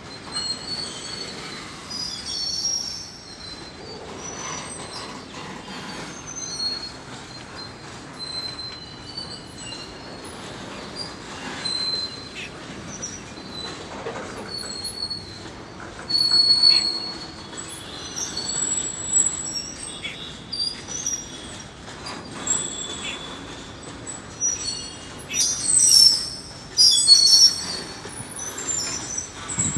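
Freight train wagons rolling past, their wheels giving many short high-pitched squeals over a steady rolling rumble, with a louder run of squealing near the end.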